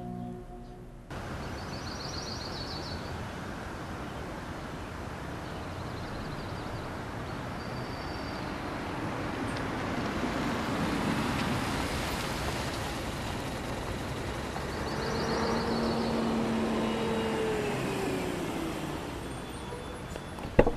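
Road traffic ambience that starts abruptly about a second in: a steady hum of passing vehicles, one swelling past about ten seconds in and another with a falling engine tone around fifteen seconds in, with a few short high chirps now and then.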